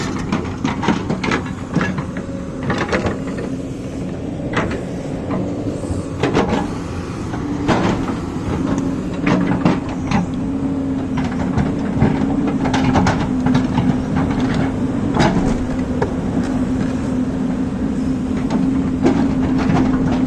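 A machine running steadily with a held hum, with sharp metallic clicks and knocks coming irregularly throughout.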